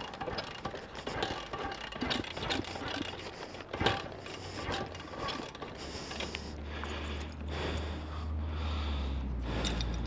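Pit bike's YX 160cc four-stroke engine idling with a dense mechanical clatter. About six seconds in, a steady low hum comes up and grows louder.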